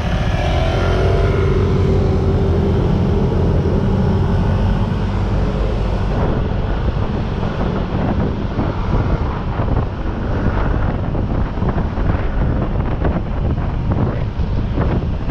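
Riding along at speed: a heavy steady rumble of wind on the microphone mixed with a vehicle engine, most likely a motorcycle. An engine note is heard in the first few seconds, then gusty buffeting.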